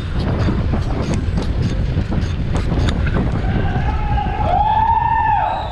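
Wind rushing over the microphone of a bicycle descending at speed, with scattered sharp clicks in the first half. From about halfway in, a wailing tone rises and falls, siren-like, twice.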